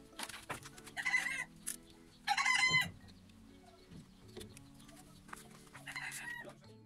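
Domestic chickens calling: three short, loud calls, about a second in, near the middle, and near the end, over faint background music.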